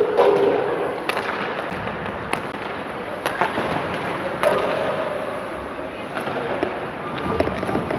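Ice hockey play: skates scraping the ice, with sharp knocks of sticks and puck about once a second and players' voices calling out briefly.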